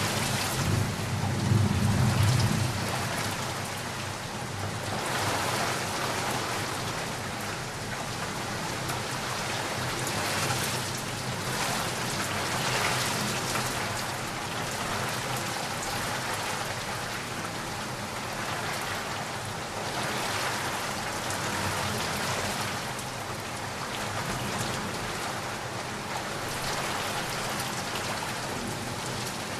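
Heavy rain falling in a steady downpour that swells and eases every few seconds, with a low rumble of thunder about a second in.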